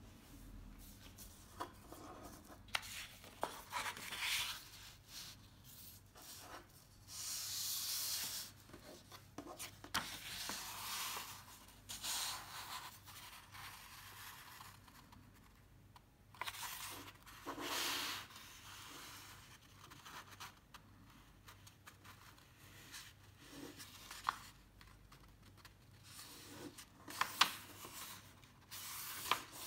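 A sheet of paper being folded by hand: irregular rustles and swishes as it is lifted and turned over, and fingers rubbing along the paper to press the creases flat, with a few sharp taps near the end.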